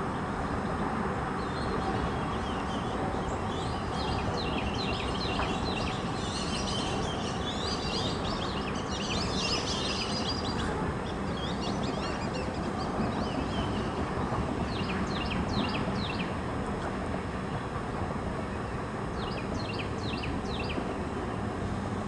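Freight train of oil tank cars rolling steadily past, a continuous rumble and rush of wheels on rail. Birds chirp over it in short clusters several times.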